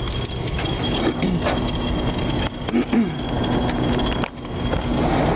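Steady rumbling storm noise of wind and rain around a tornado, with a faint steady hum and two short gliding sounds about one and three seconds in.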